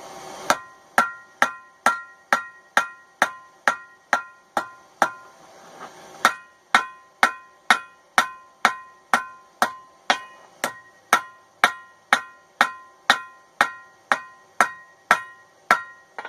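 Cross-peen hammer striking a hot railroad spike on an anvil, about two blows a second, each blow leaving a short metallic ring from the anvil; the striking pauses for about a second partway through, then resumes steadily. The spike's blade is being drawn out lengthwise.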